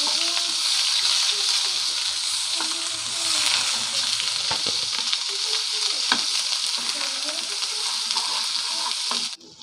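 Onion and spice paste frying in hot oil: a steady, dense sizzle with a spatula stirring and now and then knocking against the pan. It cuts off abruptly near the end.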